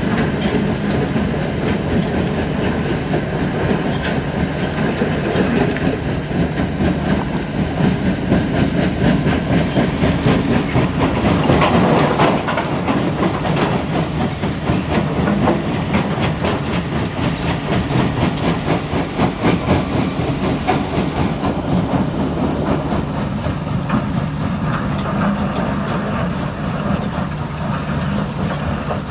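Heavy diesel machinery at a stone-crushing site: a mobile crusher and large excavators running as one steady, deep drone. Over it runs a continuous rattling clatter of rock being fed and crushed.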